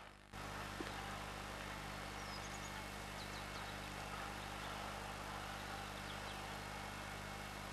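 Faint steady outdoor background with hiss and a low hum, and a few brief high bird chirps about two to three seconds in.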